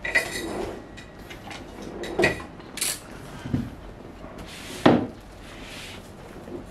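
A wooden desk drawer pulled open at the start, then handling sounds: a few sharp knocks and clicks, and a rustle ending in the loudest knock about five seconds in.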